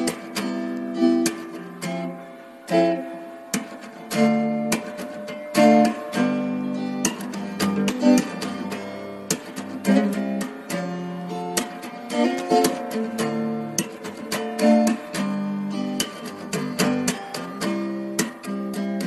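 Acoustic guitar music, with plucked notes and strums.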